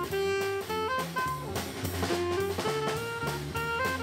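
Jazzy background music with a drum kit keeping a steady beat under a melody of short, clear stepped notes.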